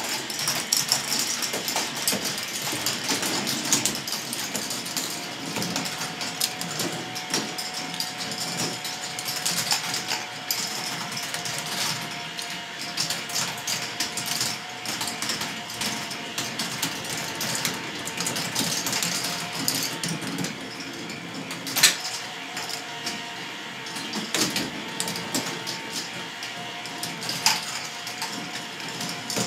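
K'nex ball machine running: many plastic balls rattling and clicking along the plastic tracks and through the lifts, over a faint steady whine from the lift motors. One sharper, louder click comes about two-thirds of the way through.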